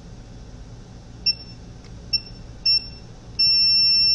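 Digital multimeter's continuity beeper sounding as the probes touch points on a circuit board: three short high beeps, then a longer steady beep near the end.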